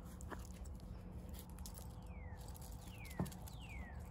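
A bird singing a run of clear whistled notes, each sliding down in pitch, three in a row about three-quarters of a second apart from about halfway through, over a faint low outdoor rumble. A single knock sounds a little after three seconds in.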